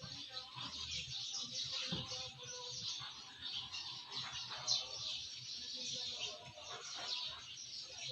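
Birds chirping, many short calls overlapping throughout.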